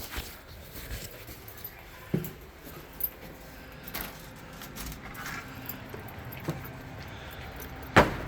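Footsteps and light metallic jingling as a person walks with a small dog, with scattered clicks and one sharp, loud knock near the end.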